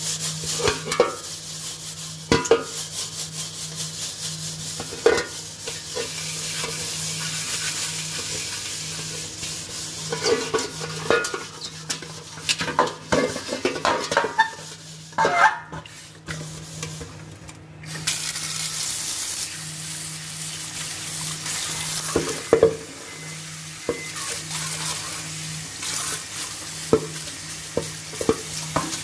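Steel scrubber scrubbing the inside of a metal pot with dishwasher liquid: a continuous scratchy scouring with frequent short knocks against the pot, pausing briefly a little past the middle.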